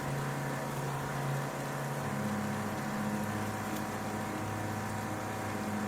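Pressure washer running, a steady hum that shifts in pitch about two seconds in, as it blasts rust and scale out of a car's fuel tank.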